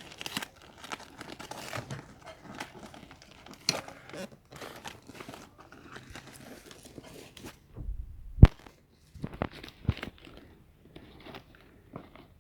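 Gift wrapping and packaging being torn and crumpled by hand, crinkling irregularly, with a sharp knock about eight seconds in and a couple of lighter ones just after.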